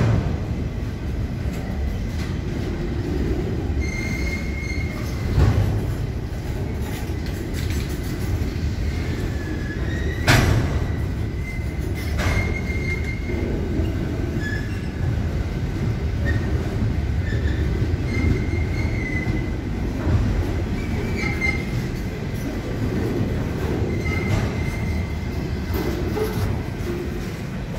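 Slow container freight train rolling past: a steady low rumble of wagon wheels on the rails, with brief high-pitched wheel squeals every couple of seconds and an occasional sharp clunk, the loudest about ten seconds in.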